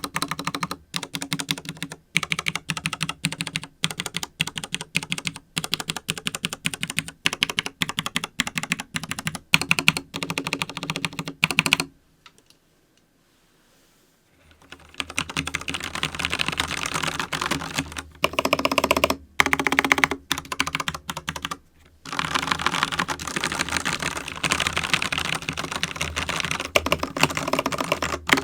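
Keys of a FILCO Majestouch mechanical keyboard with Cherry MX Brown switches being typed in quick runs of clicks, with a pause of about two seconds just past the middle.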